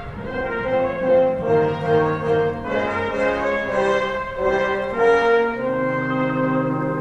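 Orchestral music, with brass playing a melody of long held notes.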